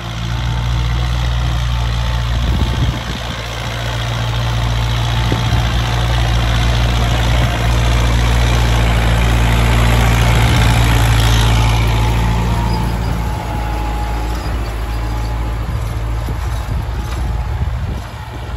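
Kubota MU4501 tractor's four-cylinder diesel engine running steadily under load while working a field. It gets louder as the tractor comes close, is loudest about halfway through, then eases off as it moves away.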